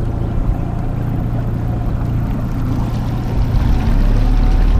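Honda 8 hp twin-cylinder four-stroke outboard running on an aluminium boat, a steady low hum with water rushing along the hull. It grows louder about three and a half seconds in.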